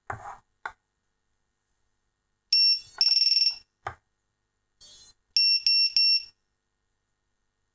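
High electronic beeps from an FPV drone as it powers up on a USB-C connection: a short beep, a longer tone, then four quick beeps. Light clicks of the cable and drone being handled come before them.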